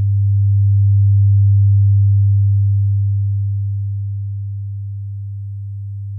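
A low, pure sine-wave tone from a Kyma X software oscillator. Its loudness slowly swells and fades, modulated by a sub-audio LFO, and it cuts off abruptly at the end.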